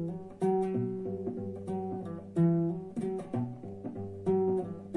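Classical guitar picking a single-note bass riff: ringing low notes on the open low E string and the D string, broken up by short percussive hits on the muted A string.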